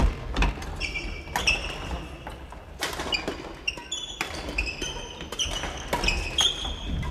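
Badminton play: sneakers squeaking in short bursts on the wooden gym floor, mixed with frequent sharp racket hits on shuttlecocks and footfalls.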